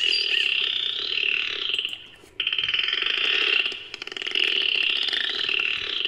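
Dolphin burst-pulse sounds: three rapid buzzing pulse trains, each one to two seconds long, with short breaks between them.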